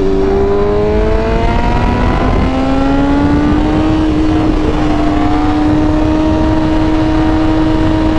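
BMW M1000RR's inline-four engine through its full titanium exhaust (Akrapovič headers, SC-Project slip-on), running under way: the note climbs slowly in pitch, drops once about two seconds in at an upshift, then climbs a little and holds nearly steady.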